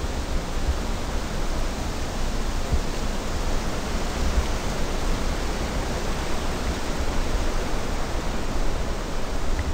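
Steady rushing outdoor noise with an uneven low rumble; no distinct engine tone or rotor beat stands out.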